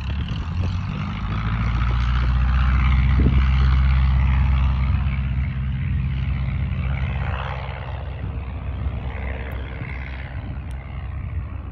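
1945 Luscombe 8A's Continental A-65 four-cylinder engine and propeller at full takeoff power, a steady drone that is loudest a few seconds in as the plane passes. It then fades slowly as the airplane lifts off and climbs away.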